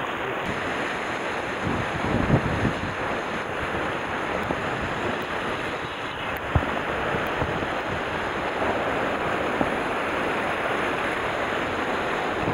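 Sea surf washing against shoreline rocks under steady wind noise on the microphone, with a few soft low buffets.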